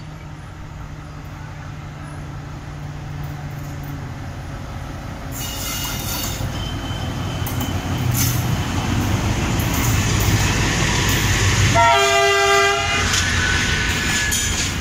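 Indian Railways WDG-3A diesel locomotive hauling a goods train of flat wagons past at close range. Its engine grows steadily louder as it approaches, then the wagons' wheels rumble and clatter along the rails. A short horn blast sounds about twelve seconds in.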